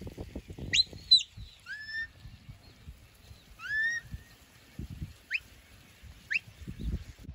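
Shepherd's whistle commands to a working sheepdog: a loud pair of rising whistles about a second in, then four shorter whistles, some rising and some falling. Low thumps and rumble run underneath.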